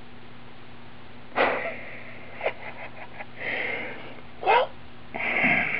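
A person sniffing and breathing in short noisy bursts, about five in all, one with a brief pitched squeak in it.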